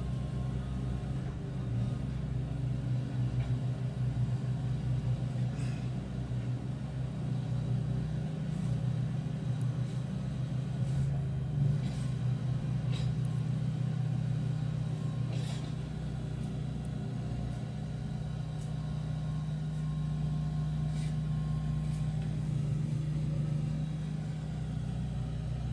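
Steady low engine drone of road-repair machinery: a small ride-on steamroller compacting fresh patching, with a backhoe and dump truck running. A few short sharp knocks are scattered through.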